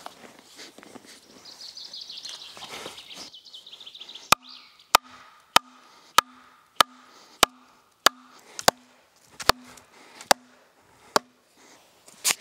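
A wooden stake being driven into the ground: about a dozen sharp, evenly spaced blows, roughly one every two-thirds of a second, starting a few seconds in.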